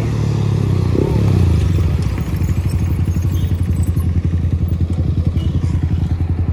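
Sport motorcycle engines idling close by as the bikes pull up and stop, a loud steady low exhaust note with fast even pulses.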